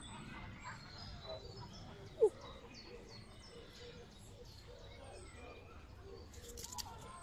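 Small birds chirping and twittering in short high calls, with one short, loud squeak falling in pitch about two seconds in.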